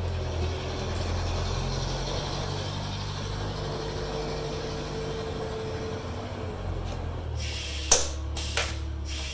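Pneumatic Huck rivet gun setting a rivet through the visor bracket: a hiss of air for about half a second near the end, ending in a sharp snap as the rivet sets, then a shorter second pop. A steady low hum runs underneath.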